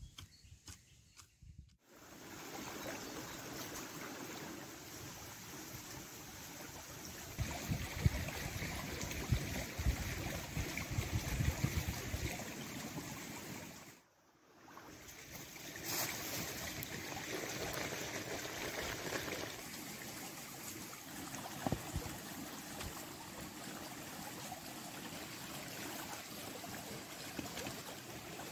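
Steady rush of running water, as of a stream. It drops out briefly about halfway through, then comes back.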